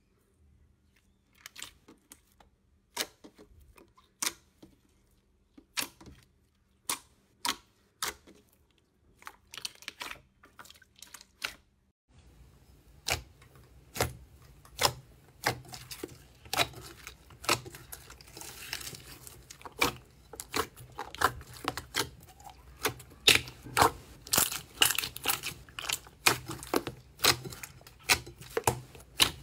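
Slime being stretched and pressed by hand, giving sharp sticky pops and clicks, about one a second at first. About twelve seconds in, a softer pudding-style slime being poked and squeezed in a glass bowl gives a faster, louder run of pops and squelches over a low steady hum.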